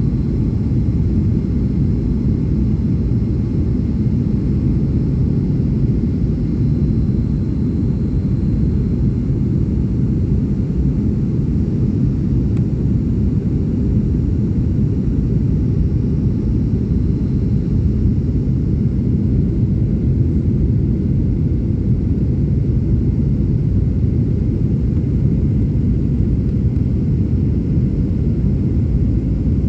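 Steady low rumble of a passenger aircraft's engines and airflow, unchanging throughout.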